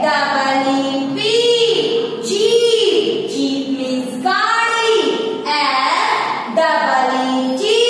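A woman's voice chanting words aloud in a sing-song way, each syllable drawn out with a rise and fall in pitch, as in a phonics reading drill of 'ee' words such as 'jeep' and 'feet'.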